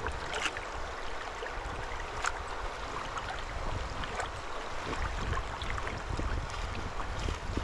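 River water flowing and sloshing around the legs of a person wading knee-deep, with scattered small splashes over a low rumble.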